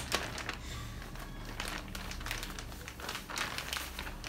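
Clear plastic zip-lock bag crinkling and rustling as hands open it and pull a garment out, in irregular handling noises.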